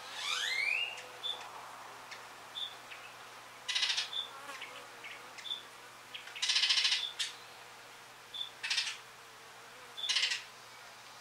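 Orioles calling: a rising whistled note at the start, then harsh, buzzy chatters every couple of seconds, the longest about six and a half seconds in. A short high note repeats about once a second throughout.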